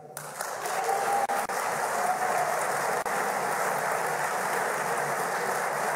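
Large audience applauding: a dense, steady clapping that builds over the first second and then holds.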